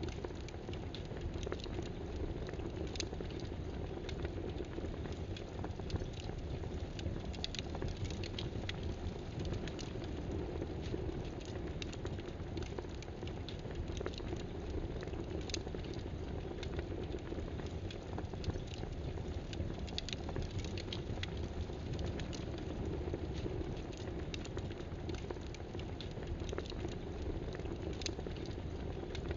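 Computer keyboard typing in irregular, scattered clicks over a steady background hiss and low hum.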